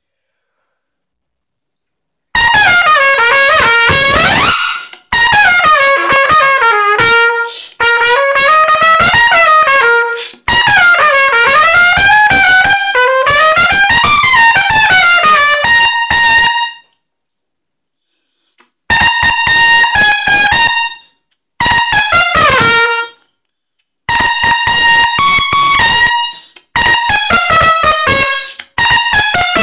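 Solo trumpet played loud and close up, starting after about two seconds of silence: fast runs of separately tongued notes climbing and falling in short phrases. Brief breaks come between the phrases, with a longer pause a little past halfway.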